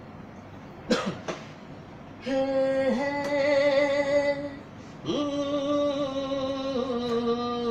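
A young man singing unaccompanied, holding long, steady notes without words, with a short break before he carries on. A brief vocal sound comes about a second in, before the singing starts.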